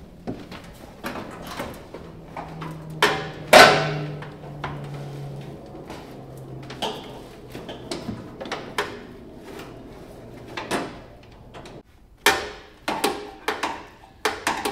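Clunks and knocks of metal from a lowered Murray riding lawn mower as someone climbs onto it and tries the shift and brake levers. The loudest is a single clang with a short ring about three and a half seconds in, and a quick run of sharp knocks comes near the end.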